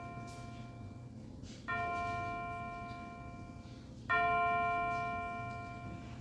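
An altar bell struck twice, each stroke ringing clearly and dying away over about two seconds, with the tail of an earlier stroke fading at the start. It is the bell rung at the elevation of the consecrated host after the words of consecration.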